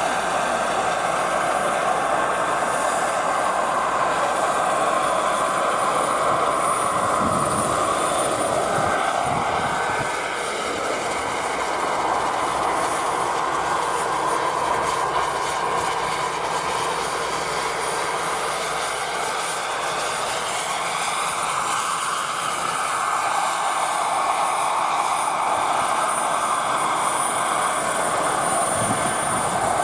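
Radio-controlled scale model helicopter in flight, its engine and rotors running continuously with a slow rise and fall in pitch and a thin steady high whine.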